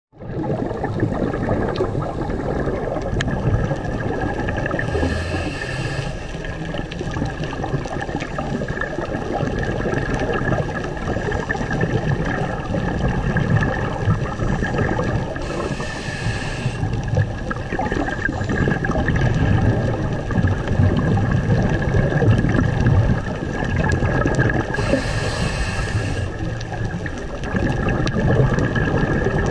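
Underwater ambience heard through a camera housing over a coral reef: steady rushing noise with low rumbling, broken three times, about ten seconds apart, by a short high hiss that matches a scuba diver's regulator breaths.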